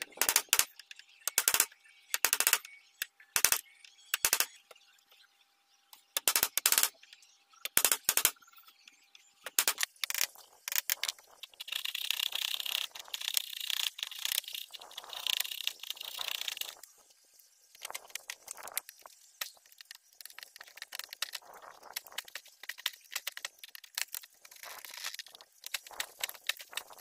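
A steel chisel struck about a dozen times, sharp hits roughly a second apart, as it chops down along a marked outline in a wooden board. It is followed by the chisel paring the wood by hand, a run of scraping and shaving sounds as curls of wood come off, loudest in the middle and quieter toward the end.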